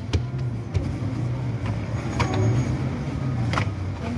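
Soft dough being stretched and slapped down on a floured wooden board, a few sharp slaps a second or so apart, over a steady low hum.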